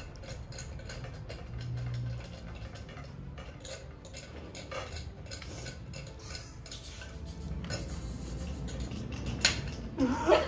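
Light scratching and tapping of small pointed tools picking at dalgona honeycomb candy on plates, with irregular small clicks. There is a sharper click about nine and a half seconds in.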